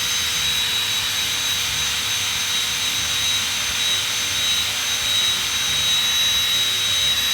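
Electric drill running at a steady speed, spinning a 180-grit hone with a little oil to open up a newly pressed rocker arm bushing that binds on the trunnion. A steady motor whine with a high tone throughout.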